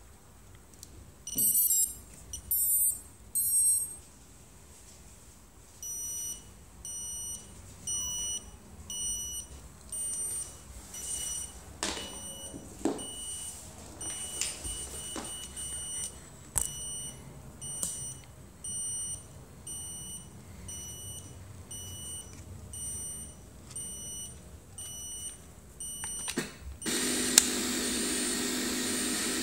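Tarot 130 mini quad's 1104 brushless motors beeping, driven by their BLHeli ESCs after the battery is plugged in: three loud startup tone sequences, then a short beep about once a second. A few handling knocks fall in between, and near the end a steady loud hiss with a low hum sets in.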